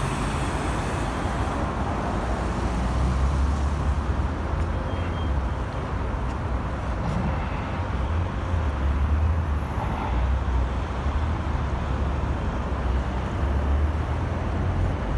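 Steady city road traffic: cars passing on a wide multi-lane street, a continuous rush of tyres and engines with a low rumble underneath.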